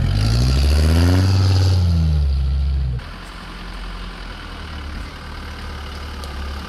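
Off-road 4x4 engine revving up and back down, then cutting abruptly about three seconds in to a steady, quieter low engine run.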